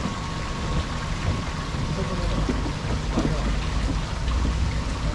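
Steady city street ambience: a low rumble of traffic with an even hiss, and faint snatches of passers-by talking.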